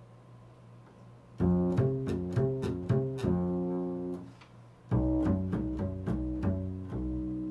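Double bass played pizzicato: a faint fading note, then about a second and a half in a run of plucked notes, a short pause, and a second run of plucked notes.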